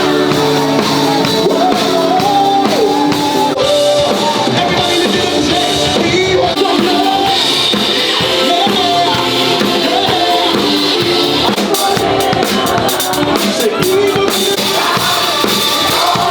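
A live worship band playing, with a drum kit and sung vocals.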